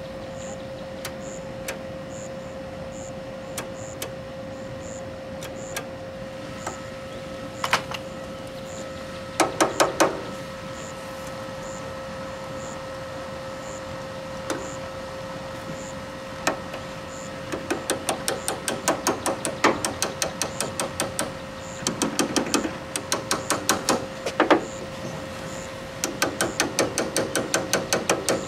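A ratchet wrench clicking in several short runs of rapid, even clicks, the later runs longer, as it is worked on the riding mower's wiring. A steady faint hum sits underneath.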